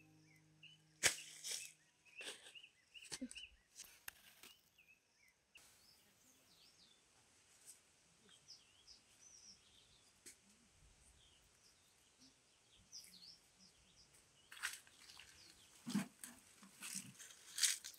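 Small birds chirping and calling throughout, with sharp cracks, knocks and rustles in the first few seconds and again near the end as cassava roots are pulled up and handled.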